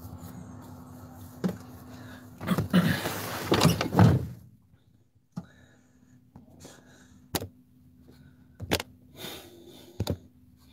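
Someone climbing into the cab of a Fiat Ducato van, with a few loud knocks and rustles, and the cab door shutting about four seconds in, which cuts off the outside noise. A few light clicks and knocks follow in the quiet cab.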